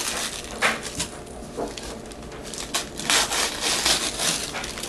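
Wrapped gift box being shaken and handled, its wrapping paper rustling and crinkling in short scrapes, coming thicker in the second half.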